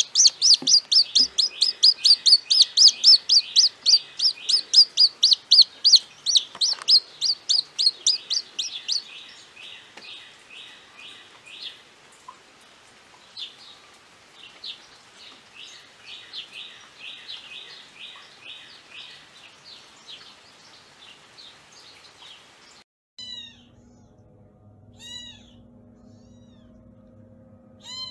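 A domestic chick peeping rapidly, about four high, falling peeps a second, loud at first and then softer and more spaced. About 23 seconds in it gives way to a few thin kitten mews.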